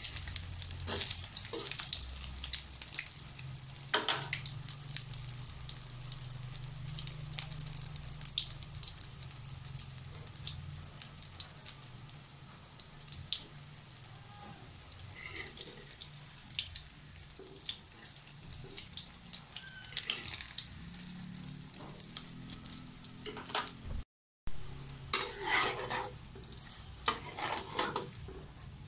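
Battered shrimp patties (tortang hipon) frying in hot oil in a wok: a steady sizzle with many small pops and crackles. The sound cuts out for a moment about four-fifths of the way through, then the sizzling resumes, a little busier.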